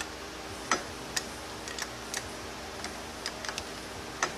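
Irregular light metallic clicks, about a dozen, as a new flat snap ring is worked around its groove in a 68RFE transmission's input clutch drum to seat it completely.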